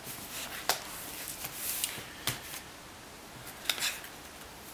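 Cardboard packaging and books being handled on a wooden table: rustling with a few light knocks and clicks, about a second in, after two seconds and near the end.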